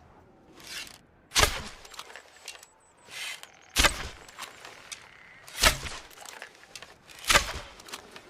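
Bow-and-arrow sound effects: four sharp shots, each with a short tail, roughly every two seconds. The first two are each led by a short soft hiss.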